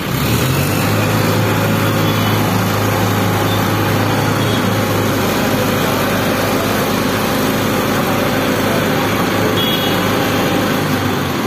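Diesel engine of an ACE mobile crane running under load as it hoists a generator set, a steady drone that comes up sharply at the start and eases off near the end.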